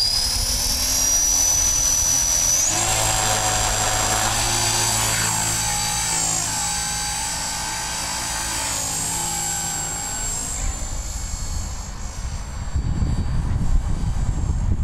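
Twister CP electric RC helicopter's motor and rotors whining. The high whine rises for the first two or three seconds as the rotors spool up, then holds steady. A low rumble of wind on the microphone takes over near the end.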